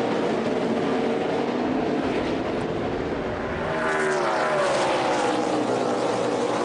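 NASCAR stock cars' V8 engines running at racing speed, a steady engine drone, with one engine's pitch sweeping up and then down about four seconds in.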